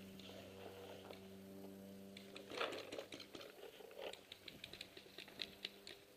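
A faint steady hum, then, about two and a half seconds in, a brief rustle followed by a run of light, irregular clicks, several a second.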